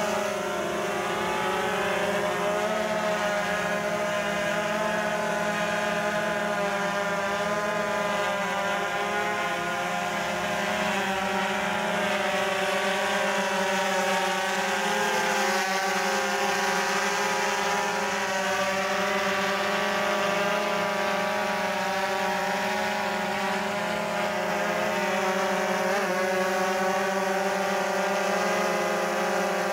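DJI Phantom quadcopter's rotors humming steadily in flight: a whine of several close pitches stacked together, wavering slightly in pitch.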